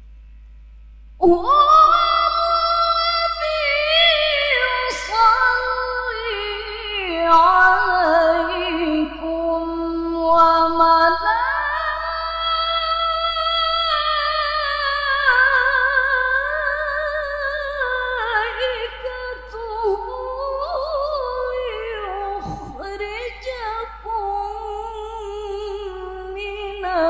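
A woman reciting the Qur'an in the melodic tilawah style into a microphone, her voice high and clear, drawing out long ornamented phrases that waver and glide in pitch. She comes in about a second in and breaks off briefly for breath about two-thirds of the way through.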